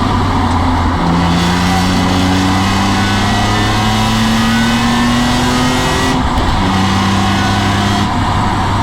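BMW M3 E46's 3.2-litre straight-six engine pulling hard on track, heard onboard. It shifts up about a second in, the pitch then climbs steadily through the gear, and the engine note changes and falls slightly around six seconds in.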